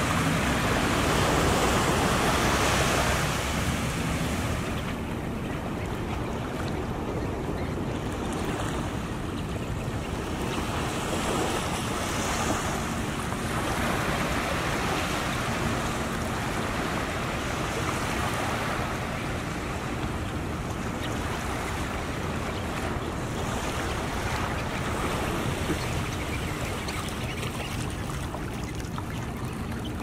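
Surf washing up a sandy beach: a continuous wash that swells and ebbs, loudest in the first few seconds.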